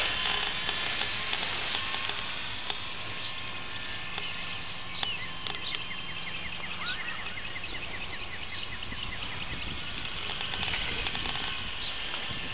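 Steady wind noise on the microphone, with a rapid run of high chirps for a few seconds around the middle.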